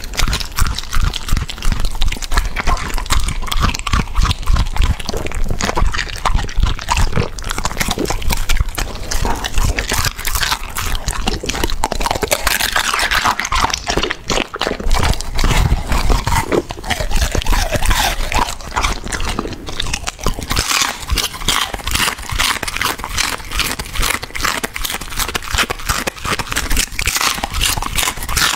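Border collie chewing and crunching raw food, a dense run of wet crunches and sharp clicks, including a whole egg eaten with its shell.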